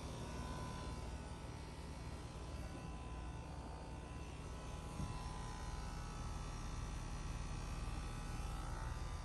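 2018 Trane XR14 central air-conditioner outdoor unit running, its compressor and condenser fan giving a steady low hum.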